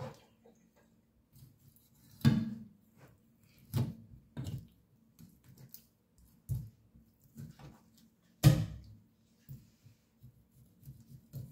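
Chef's knife knocking against a plastic cutting board while cutting into raw chicken drumsticks: a series of irregular knocks, the loudest about two seconds in and again about eight and a half seconds in.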